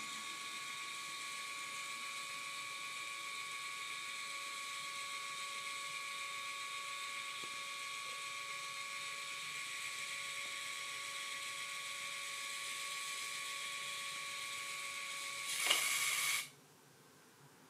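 Canon iNSPiC mini photo printer's feed motor whirring steadily as it slowly pushes out the blue sheet that comes first from a new pack of ZINK paper. Near the end the whir briefly gets louder, then stops.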